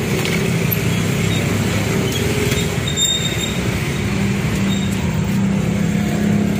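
Steady low hum of road traffic with idling engines, with light clicks of clear plastic food containers being handled.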